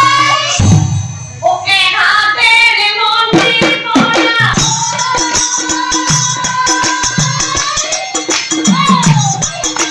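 A group of women singing a devotional song together, with hand-clapping. From about four seconds in, the clapping settles into a fast, steady beat, and a high, shaken percussion hiss joins it.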